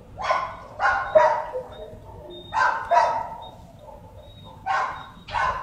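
A dog barking in short barks that come mostly in pairs, three sets a couple of seconds apart.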